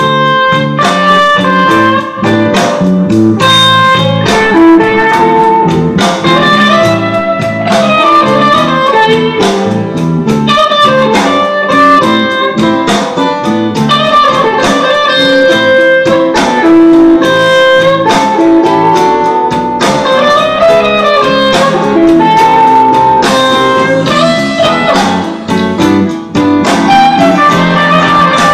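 Music played loud through a Harley-Davidson touring bike's stereo, from newly installed JBL coaxial speakers in the lower fairings.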